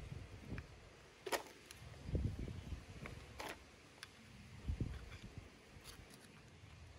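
Quiet handling of a small plastic-and-metal RC servo and a small screwdriver: two short sharp clicks, at about one and a half and three and a half seconds in, among several low dull bumps.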